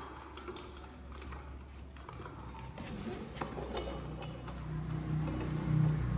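Scattered light clicks and taps of plastic and metal tricycle parts being handled during assembly, over a low steady hum that grows louder toward the end.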